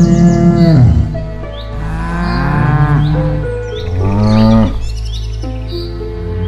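Cattle mooing: three long calls that slide in pitch, the first ending about a second in, the others around the middle, with small birds chirping in the background.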